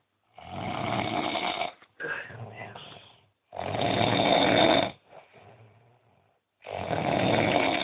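A person snoring heavily while sleeping off a drunken binge: three loud, rasping snores about three seconds apart, each followed by a quieter breath out.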